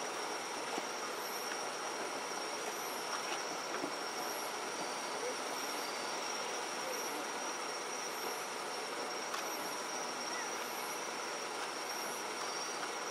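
Steady high-pitched chirring of night insects, with a short chirp repeating about every three quarters of a second, and a few faint thuds from distant fireworks.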